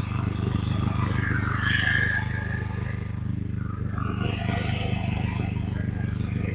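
Portable gasoline backup generator engine running steadily, with some scraping and clattering of handling over it.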